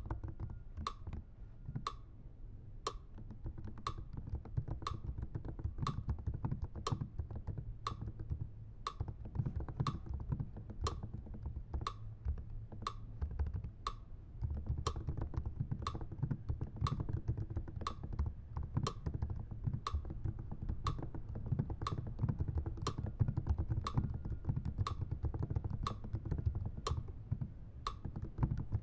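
Fingers typing on a computer keyboard, over and over. A sharp click comes about once a second in a steady beat.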